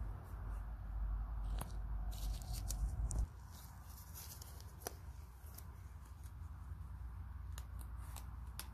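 Low rumble on the microphone that stops abruptly about three seconds in, with scattered sharp clicks and ticks throughout.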